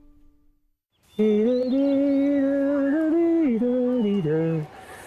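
Background music fading out, then after a short gap a single voice humming a slow tune in long held notes that step up and down, breaking off briefly near the end.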